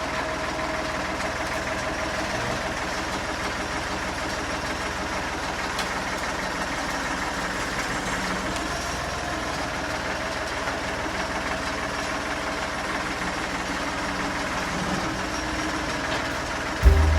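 Tractor engine running steadily at an even speed. Music starts in just before the end.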